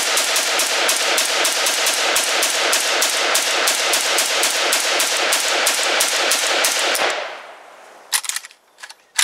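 Rapid semi-automatic rifle fire from an ATI Galil ARM replica in 5.56 NATO, about four shots a second, a long string that stops about seven seconds in. A few sharp clicks follow near the end.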